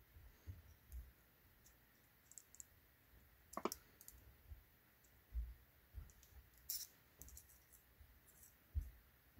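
Faint small metal clicks and light handling knocks as a replacement Lishi pick tip is worked into the pick's body until it seats. The clearest clicks come about three and a half seconds and six and a half seconds in.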